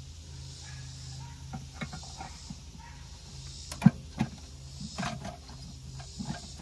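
Pliers clicking and scraping against seized bolts at the carburettor of a 1980 Ford F100, which do not loosen; a scatter of short metallic clicks, the sharpest about four seconds in.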